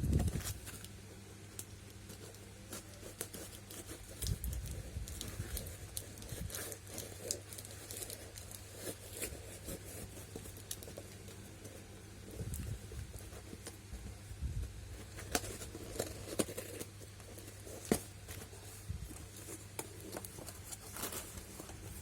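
Hands opening a shipping parcel: tape tearing, plastic packaging crinkling and rustling, with scattered clicks and knocks of handling. A steady low hum runs underneath.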